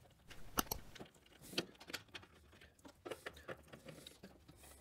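Faint clicks and light taps of hands fitting and tightening the locking knob on a bandsaw table's metal tilt bracket, with a few sharper ticks spread through it.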